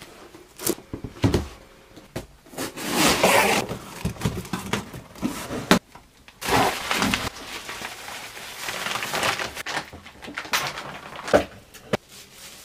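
Packaging being handled as a speargun is unwrapped from bubble wrap in a cardboard box: crinkling and rustling in several bursts of about a second each, with sharp knocks in between.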